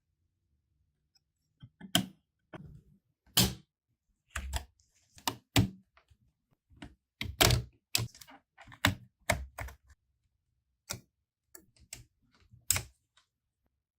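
Irregular sharp clicks and knocks, some with a dull thud, from a Lenovo laptop's plastic parts and keys being handled and tapped during repair, about twenty in all.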